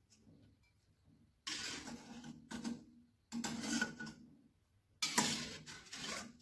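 Slotted metal spatula scraping along the bottom of a wok as boiled shimeji mushrooms are scooped out of the water, three scoops of about a second each.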